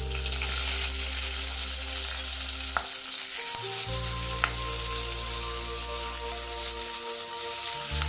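Crushed shallots, green chillies and curry leaves dropped into hot coconut oil, sizzling. The sizzle jumps up about half a second in and again around three and a half seconds as more of the shallots go in, with a faint click or two.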